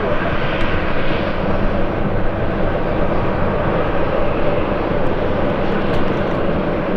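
Airbus A350-941's Rolls-Royce Trent XWB jet engines running with a loud, steady rush, mixed with wind noise.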